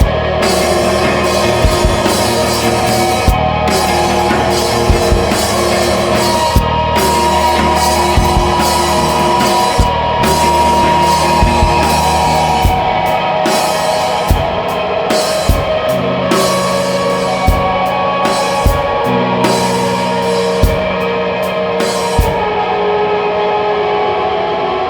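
Grunge rock music: loud guitars held on sustained chords over a drum kit. Near the end the drums and cymbals drop out and the guitars ring on.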